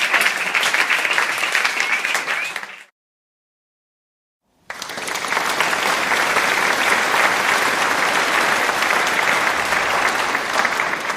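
Stock applause sound effect: a round of clapping fades out about three seconds in. After a short dead-silent gap, a second, fuller round of applause starts abruptly and fades away near the end.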